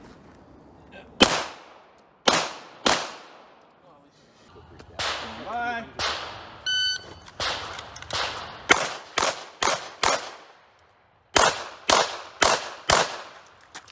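Pistol shots outdoors: three sharp shots in the first three seconds. Then a shot timer's electronic start beep, followed by a string of about ten quick shots with a pause of about a second after the sixth.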